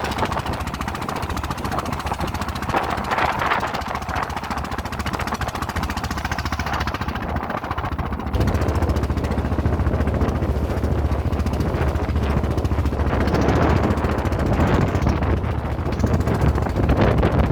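Small boat's engine running steadily underway with a fast, even chugging; it gets louder about eight seconds in.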